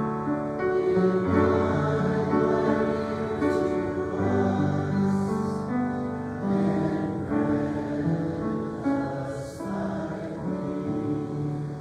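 A group of voices singing slow church music in held notes and changing chords, with instrumental accompaniment.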